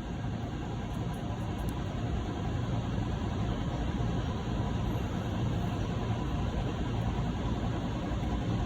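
Steady low rumbling background noise with no distinct events, growing slightly louder over the first few seconds.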